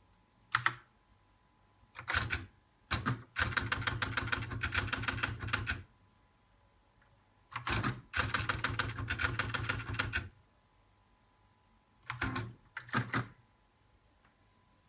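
Siemens T1000 teleprinter printing in bursts of rapid, even clicks, about seven characters a second, with short pauses between lines. It is printing the date, time and answerback codes of the telex connection's answerback exchange.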